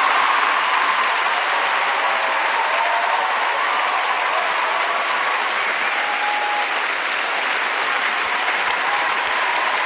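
Audience clapping loudly and steadily, with a few cheers and whistles, at the end of a sung performance.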